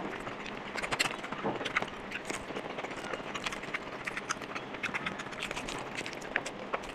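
Close-up eating sounds: a hand kneading rice into mutton curry and bringing it to the mouth, then chewing. The sound is a dense run of small, irregular sticky clicks and crackles.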